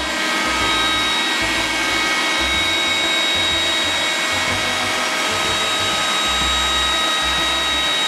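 An iRobot Roomba 980 robot vacuum running with a steady whine as it drives itself back to its charging dock after cleaning is cancelled.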